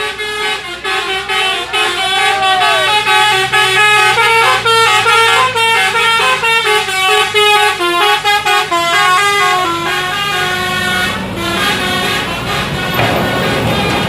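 Telolet basuri multi-tone bus horn playing a fast melody of quickly changing notes over the bus engine running. The horn melody stops about eleven seconds in, leaving the engine sound louder.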